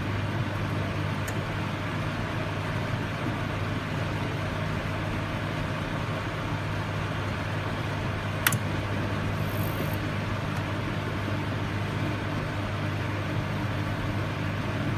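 Microwave oven running with a steady hum and whir, with one short click about eight and a half seconds in.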